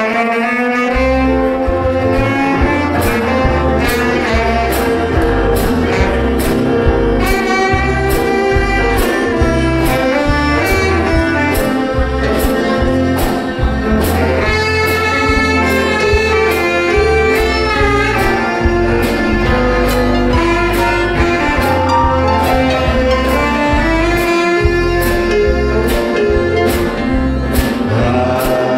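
Live country gospel band playing an instrumental intro, a saxophone leading over fiddle, electric guitars and bass, with drums keeping a steady beat.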